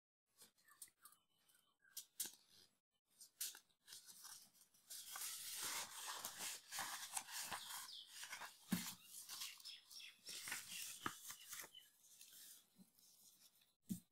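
Sheets of paper rustling and crinkling as they are picked up and turned over, after a few seconds of scattered light clicks.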